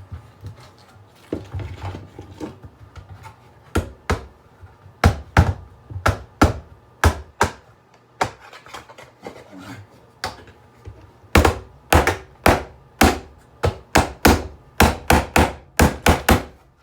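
Repeated sharp knocks as an alarm clock's parts are struck and broken apart: scattered at first, then louder and faster, about two to three a second, from a little past the middle.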